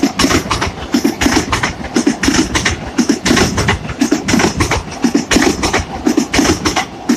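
Train passing close by, its wheels clattering over the rail joints with a regular beat of about two strokes a second.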